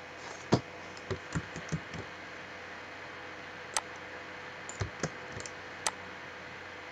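Computer mouse and keyboard clicks: about a dozen short, irregular clicks in two clusters, one in the first two seconds and one from about four to six seconds in, over a faint steady hum.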